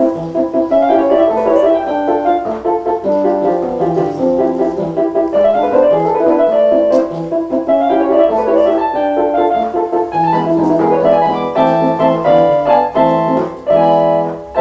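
Piano playing a waltz, with full chords sounding steadily throughout.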